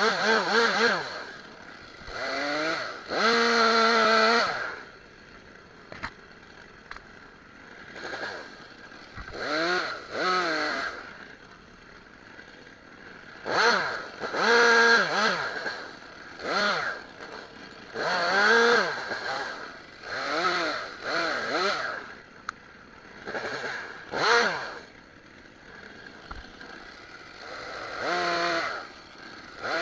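Stihl chainsaw revved in short bursts about a dozen times, its pitch rising with each rev and dropping back to idle between, as it cuts through brush.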